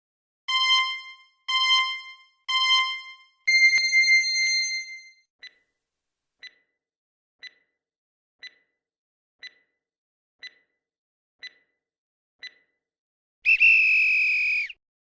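Quiz countdown timer sound effect: three short beeps and a longer beep, then a tick about once a second, ending with a brief, loud alarm tone as time runs out.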